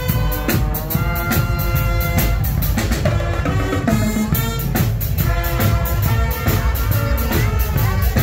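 Street brass band with trombones playing a tune over a steady drum beat.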